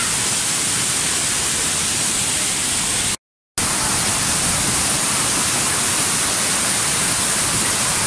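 Steady rush of a waterfall, an even loud hiss of falling water that cuts out to silence for a moment about three seconds in, then resumes.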